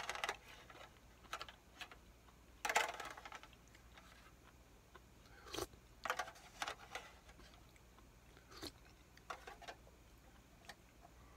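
A person slurping and chewing hot-pot broth, spooned from an aluminium foil tray, in scattered short bursts with the longest slurp about three seconds in. Light scrapes and clinks of the spoon against the foil come in between.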